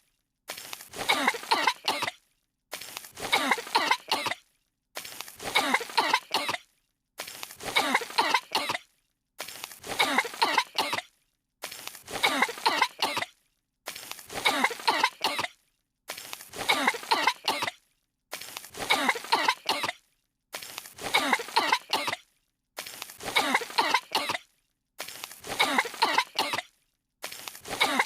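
Two cartoon girls coughing in fits, one short clip of coughs repeated over and over, about every two seconds, with a brief dead silence between repeats.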